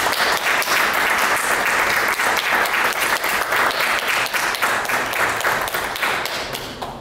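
Audience applauding: many people clapping in a dense patter that fades out near the end.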